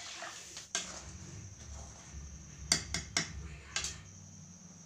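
A metal spatula clinking and scraping against a metal kadhai as the curry is stirred. There is one sharp clink about a second in, then a quick run of four clinks around three seconds in.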